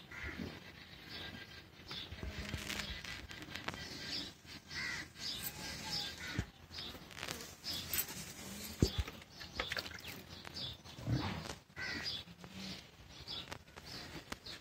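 A cow being hand-milked: short squirts and scuffs, with birds calling in the background, crows among them.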